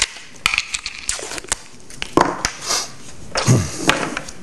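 Handling noise from a small ice cream cup and an ice cream scoop on a wooden countertop: scattered clicks and light knocks as the cup's lid is pulled off and set down and the scoop is picked up, with a few short scraping rustles.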